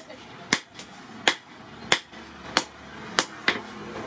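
Hand hammer striking a red-hot steel knife blade on a steel post anvil while forging. About six sharp blows come at a steady pace, roughly one every two-thirds of a second, and the last two come closer together.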